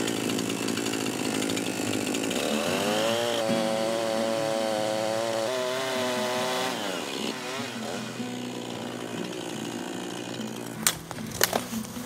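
Echo two-stroke chainsaw cutting into a pine trunk near its base. The engine revs up about two and a half seconds in, holds at full throttle through the cut, then drops back about seven seconds in.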